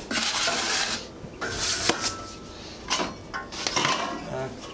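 Metal putty knife scraping and stirring drywall joint compound in a plastic bucket, in several rasping strokes with a sharp tap about two seconds in. Near the end, tools clink in a metal tool tray.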